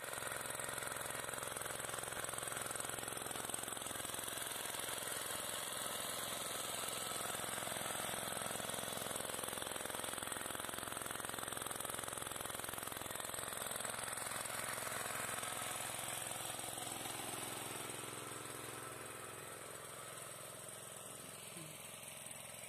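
A single-bucket milking machine's belt-driven vacuum pump running steadily with its drive motor, a dense mechanical whirr. It grows somewhat fainter over the last few seconds.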